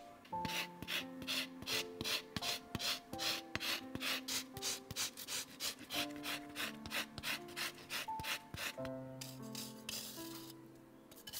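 Orange peel being zested on a fine rasp grater: quick, even rasping strokes, about four a second, then a short pause and a few longer scrapes near the end.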